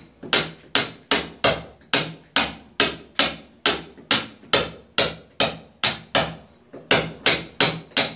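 Hammer driving a steel chisel into a wall, cutting a channel to recess wiring: steady blows about two and a half a second, each with a bright metallic ring, with a brief pause about six seconds in.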